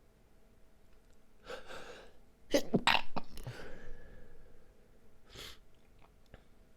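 A person's stifled sneezes as part of an allergy sneezing fit: a breathy build-up about a second and a half in, then a quick run of sharp, held-back sneeze bursts around the middle, the loudest part. A single breath follows near the end.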